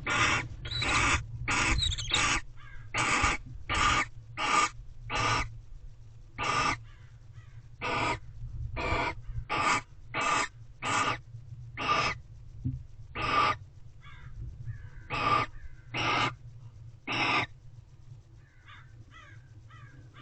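Barn owls in a nest box giving short, harsh hissing calls, about twenty in a row. They come rapidly at first, then with longer gaps, and stop a few seconds before the end. A steady low electrical hum runs underneath.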